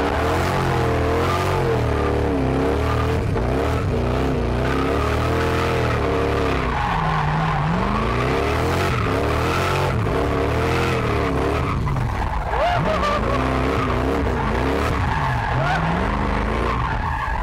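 A drift car's engine revving up and down through the slides, with the tyres skidding, heard from inside the cabin.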